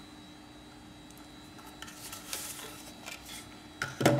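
Grinder doser chamber being handled and fitted back onto its mounting lugs: faint scraping from about halfway through, then a few sharp clicks near the end as the part goes into place.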